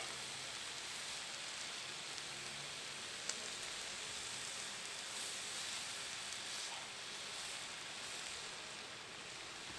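Cut-up steak sizzling steadily on a hot Blackstone flat-top griddle, with a single faint tick about three seconds in.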